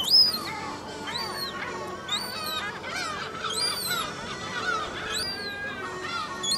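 Young herring gull calling: a string of high, thin calls that each rise and then fall, about one a second.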